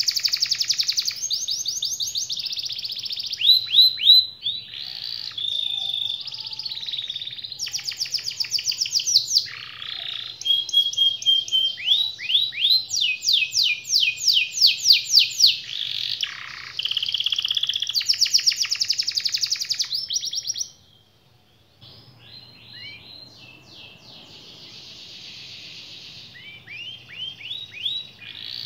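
Domestic canary singing phrase after phrase of rapid rolling trills and fast repeated notes. About 21 seconds in the song breaks off briefly, then resumes more softly.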